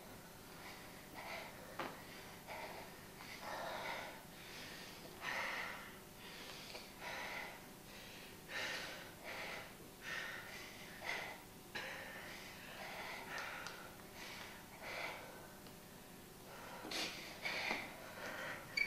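Heavy, rapid breathing in short gasps, about two breaths a second, growing louder and sharper near the end.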